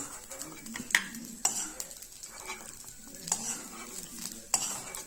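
A spoon scraping and knocking against a pan, scooping out ginger paste fried in ghee, with several sharp clinks at irregular intervals.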